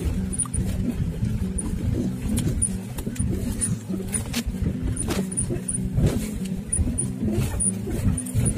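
Taxi driving along a rough gravel mountain road: the engine runs steadily under a low road rumble, with several knocks and rattles as the car goes over bumps.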